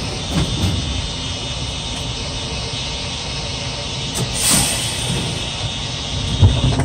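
Ride noise of an R42 New York City subway car: a steady rumble of wheels on rail, with a brief louder burst about four and a half seconds in.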